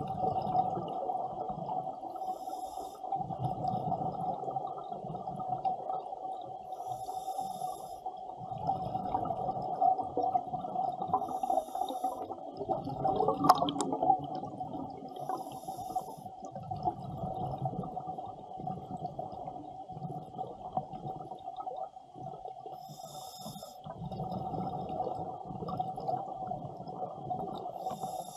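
Scuba diver breathing underwater through a regulator, with a bubbly hiss of exhaled bubbles every four or five seconds over a steady hum, and a single sharp knock about halfway through.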